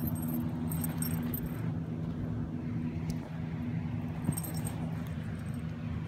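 A small dog's metal collar tag jingling in two short bursts, about half a second in and again past four seconds, over a steady low hum.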